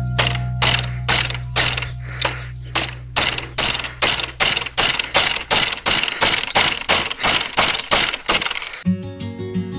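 Steady rapid hammering, about three blows a second, that stops shortly before the end.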